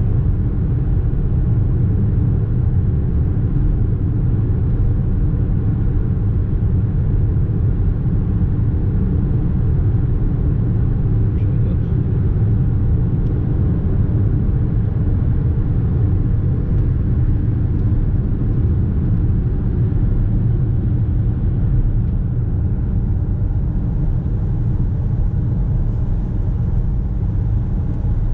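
Steady road and engine rumble heard inside a car's cabin while cruising at highway speed, with a low, even drone and no change in speed.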